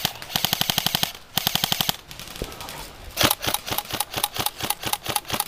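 Airsoft electric guns firing: three quick full-auto bursts of about a dozen shots a second in the first two seconds, then, after a pause, a looser scatter of shots.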